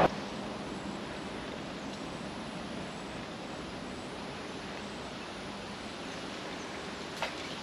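Steady outdoor background noise, a faint even hiss with a low hum under it, with one short sharp click near the end.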